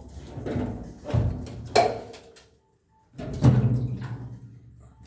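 Hollow steel Jeep CJ5 fuel tank clanking and booming as it is worked loose and handled, each knock ringing on like a drum. The sound cuts out abruptly for about half a second midway, then one loud boom follows.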